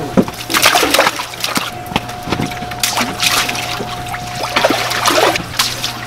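Water splashing and sloshing in a tank of live fish as a dip net scoops one out, in irregular splashes over a steady low hum.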